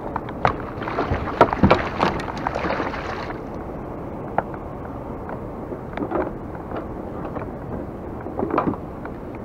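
Water splashing against a kayak for the first few seconds, then softer lapping, with scattered sharp knocks and clicks of gear on the plastic hull.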